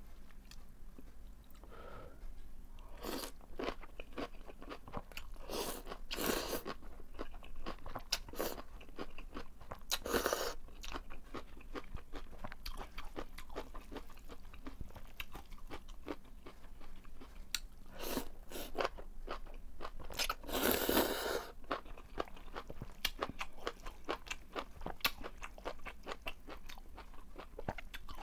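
Close-miked eating of napa cabbage kimchi and thin noodles: crisp crunching and wet chewing throughout, with a few longer slurps of noodles.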